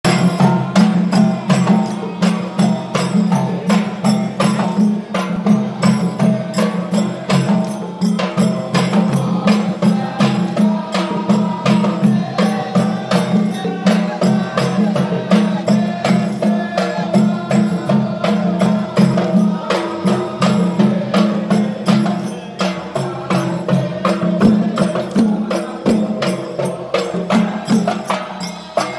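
Traditional Arabic folk drumming: double-headed barrel drums and frame drums beating a steady rhythm under a sustained chant of men's voices.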